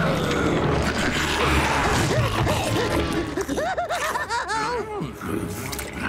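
Cartoon slime-blob monster letting out a loud, drawn-out roar over dramatic cartoon music. About three and a half seconds in comes a quick run of short up-and-down wavering notes.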